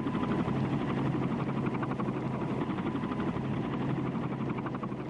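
Helicopter running steadily, its rotor giving a fast, even chop over a steady engine hum.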